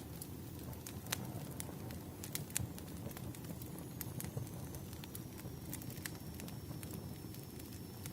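Firewood burning with a low steady rumble of flame and irregular sharp crackles and pops, a few every second. A faint thin high whistle comes in partway through.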